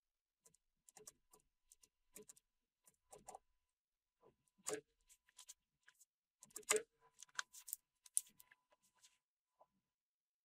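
Faint, irregular key clicks from typing on a computer keyboard, with a few louder keystrokes about two-thirds of the way through.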